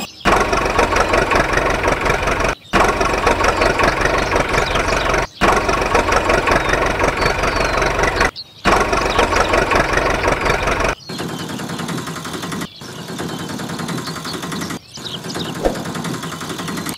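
An engine sound effect: a loud, deep engine running, broken by short gaps every two to three seconds where it cuts off and restarts. About eleven seconds in it changes to a quieter, lighter engine sound.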